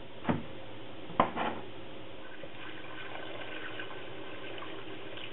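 Water poured from a plastic pitcher into a pot of cubed potatoes, a steady filling splash. It follows a few sharp knocks in the first second and a half, the loudest about a second in.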